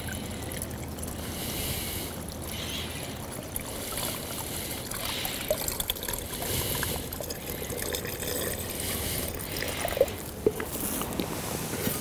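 Water pouring in a steady trickle from a metal cooking pot into the narrow mouth of an MSR Dromedary fabric water bag, with a few light taps near the end.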